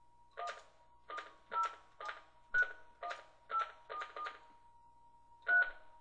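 Telephone touch-tone (DTMF) keypad beeps: about ten short two-tone beeps keyed one after another at an uneven pace as a phone number is dialed, over a faint steady tone.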